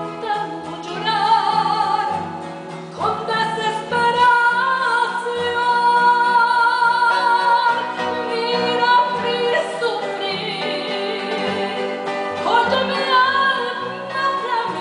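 A woman singing with upright double bass and acoustic guitar accompaniment, holding a long note through the middle of the passage over plucked bass notes.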